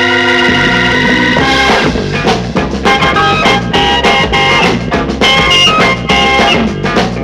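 1960s beat-group instrumental: a held organ chord gives way about half a second in to a moving bass line, then drums and choppy organ and guitar figures come in about a second and a half in.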